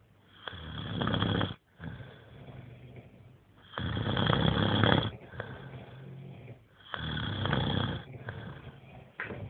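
Men snoring: three loud snores of about a second each, roughly three seconds apart, with quieter snoring between them.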